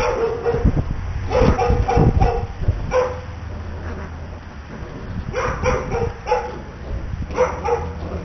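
Six-week-old Bouvier des Flandres puppies yipping and barking in play, in several short bursts of high-pitched calls.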